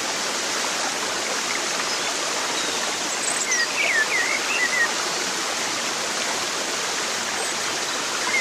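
Steady rushing of stream water. A few short high chirps come over it about three to four seconds in.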